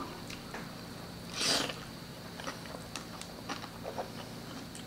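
Close-miked eating: quiet chewing and small mouth clicks from people eating crispy deep-fried pork belly by hand, with one louder bite about a second and a half in.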